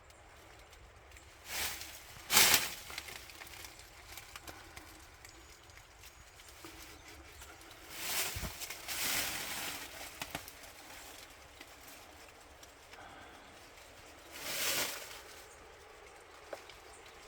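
Quiet forest ambience broken by a few short bursts of rustling. The loudest comes about two seconds in, a longer one falls around the middle, and another comes near the end.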